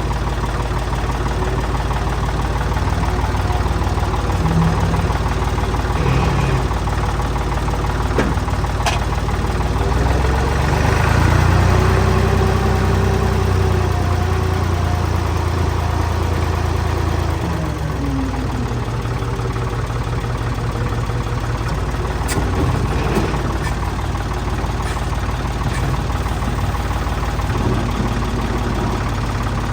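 Tractor engine running steadily, climbing in speed about ten seconds in and dropping back down about eight seconds later, with a couple of sharp knocks.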